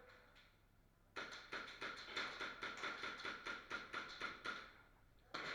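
Music with a steady drum beat, about three beats a second, starting about a second in and fading near the end.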